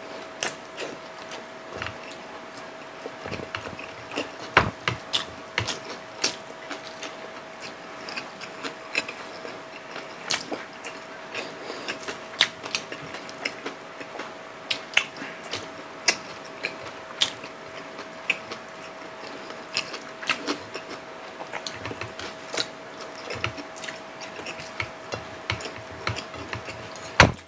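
Close-miked chewing and mouth sounds of two people eating fried milkfish and rice by hand: irregular wet smacks and small clicks, a few a second.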